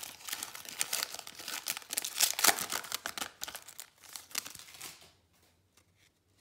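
Panini Prizm basketball card pack's shiny wrapper crinkling and tearing as it is worked open by hand, a stubborn pack that is hard to open. The crackling is loudest about two and a half seconds in and stops about five seconds in.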